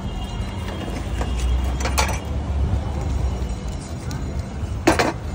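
Metal spoon scraping and knocking against a small iron pan on a gas stove, with a sharp knock about two seconds in and a louder one near the end; a low rumble underneath in the first half.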